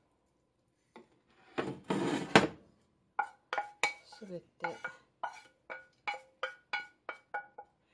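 Wooden spatula scraping cooked clams and ginger out of a stainless steel frying pan into a ceramic bowl: a scrape of about a second, then a run of about a dozen light knocks, about three a second, each ringing briefly as the pan and spatula tap against the bowl.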